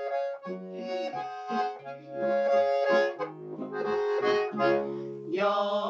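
Diatonic button accordion (Steirische Harmonika) playing a lively instrumental interlude between verses of an Alpine folk carol, with acoustic guitar accompaniment.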